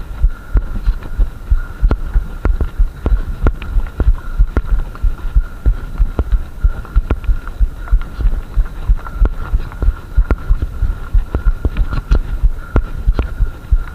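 Mountain bike rattling over a loose gravel track, picked up through a handlebar-mounted action camera: a steady stream of dull thumps and knocks, roughly two a second, from the bumps jolting the camera mount, over a thin steady hum.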